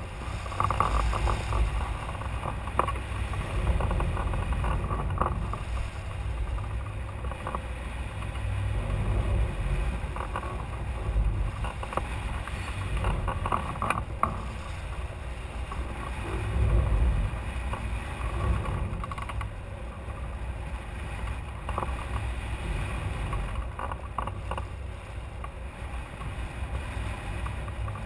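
Airflow rushing over the microphone of a camera mounted on a hang glider in flight: a gusty low rumble that swells and eases every few seconds.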